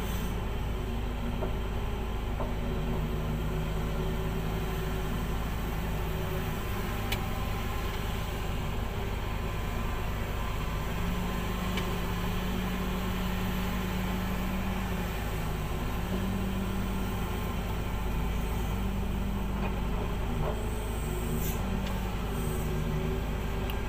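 Komatsu PC2000 hydraulic excavator's diesel engine running steadily under load through its dig-and-swing cycle, a heavy low rumble whose engine note steps up and down in pitch as the hydraulics work.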